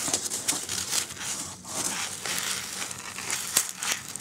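Hand rummaging through a cardboard box full of polystyrene foam packing peanuts: steady rustling of the foam pieces against each other and the box, with many small irregular crackles.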